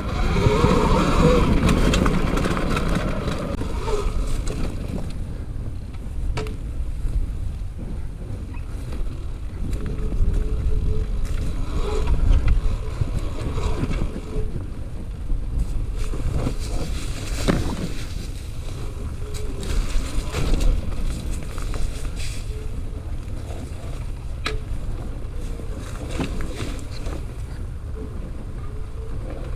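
E-bike riding along a forest trail: steady wind rumble on the microphone and tyre noise, with scattered clicks and rattles over bumps.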